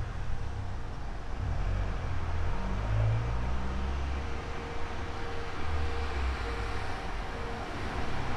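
Road traffic passing: vehicle engines rumbling unevenly and tyre noise, swelling as vehicles go by, with a faint steady hum.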